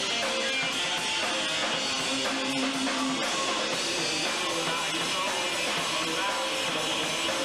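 Rock band playing live: guitar over a drum kit, with a steady wash of cymbals.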